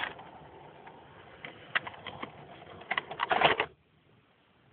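Model East Midlands Trains passenger train running, its wheels clicking over the rail joints. About three seconds in there is a burst of loud clattering as the leading car comes off the track, and then the sound cuts off suddenly.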